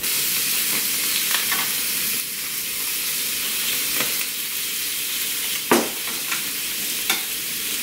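Pork belly sizzling steadily on a tabletop grill plate, with a few sharp clicks of metal tongs against the grill as the meat is moved, the loudest about three quarters of the way through.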